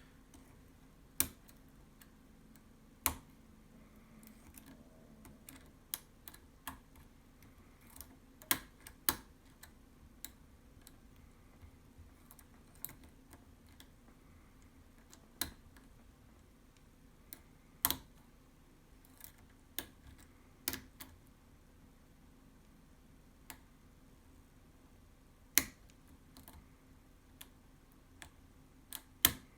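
Irregular small metallic clicks and ticks from a hook pick and tension wrench working the pins inside a pin tumbler lock, with a couple of dozen clicks spread unevenly, a few sharper than the rest.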